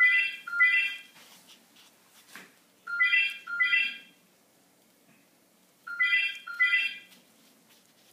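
Telephone ringing in the British double-ring pattern: two short electronic trills close together, repeating about every three seconds, three times over.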